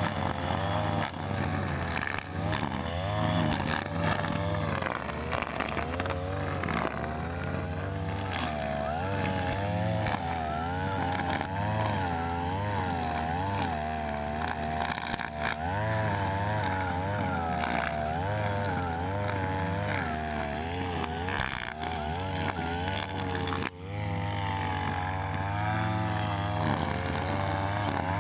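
Petrol brush cutter engine running while cutting grass, its speed rising and falling continually as the operator works the throttle and the blade takes load. There is one brief dip about two-thirds of the way through.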